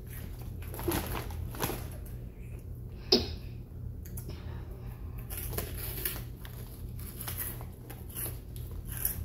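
Hot chips being bitten and chewed with crunching, with a few sharp crunches in the first few seconds, the sharpest about three seconds in, over a steady low hum.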